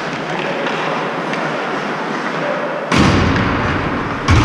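Steady ice-rink noise, then two heavy thuds close by at the players' bench, the first about three seconds in and the second near the end.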